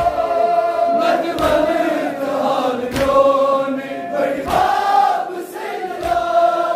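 A crowd of men chanting a Kashmiri noha (Shia lament) together. A loud collective slap of hands on chests (matam) lands in unison about every second and a half.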